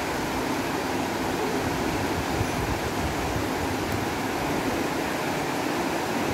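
River water rushing over shallow rocky rapids: a steady, even noise.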